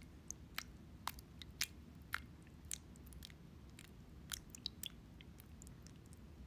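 Miniature spreading knife tapping and scraping along the roof edge of a tiny gingerbread house as white icing is spread on, a run of small irregular clicks and ticks over a faint low room hum.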